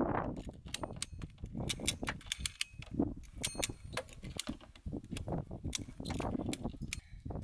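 Ratchet strap being worked, giving irregular runs of sharp clicks with a quick burst of ticks about halfway through, as it pulls down a camper's aluminium pop-top roof.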